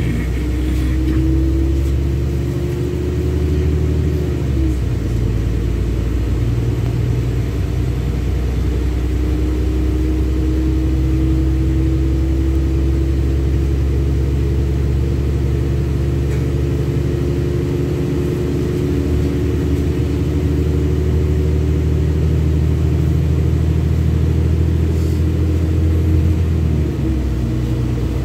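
LiAZ-6213.65 articulated city bus heard from inside the cabin while driving: a steady low rumble with an engine and drivetrain whine that climbs slowly in pitch as the bus gathers speed. The whine drops back about five seconds in and again near the end, as the gearbox shifts up.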